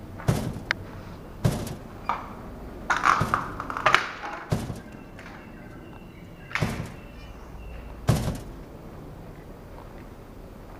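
A series of dull knocks spaced a second or more apart, with a burst of crunching and scraping about three to four seconds in: footsteps and debris underfoot on a rubble-strewn floor.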